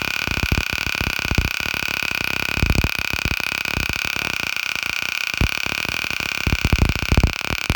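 Handheld stun gun (taser) arcing continuously: a dense electric crackle under a steady high-pitched whine, with a few louder snaps.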